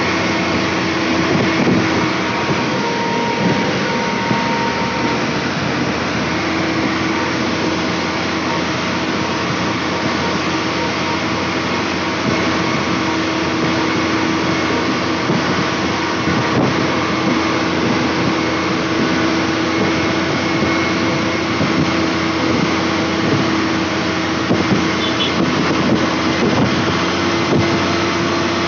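Motor grader's diesel engine running steadily while the machine drives along, a constant drone with a steady hum under it.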